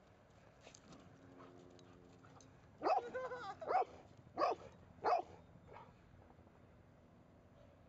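A dog barking four times in quick succession: a longer, drawn-out first bark, then three short ones, between about three and five seconds in.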